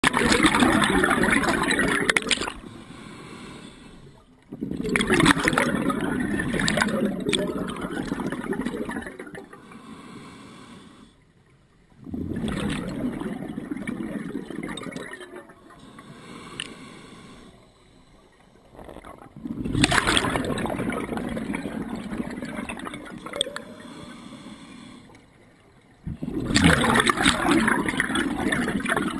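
Scuba diver breathing through an open-circuit regulator underwater: exhaled bubbles bubble out in loud bursts a few seconds long, about every seven seconds, with quieter stretches between them as the diver breathes in.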